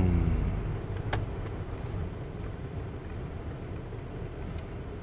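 Cabin noise of a Mercedes-Benz S400d on the move: a low, steady road rumble, with faint scattered light ticks.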